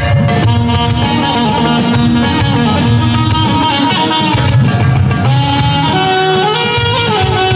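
Instrumental music: a melody that steps up and down over a steady low beat.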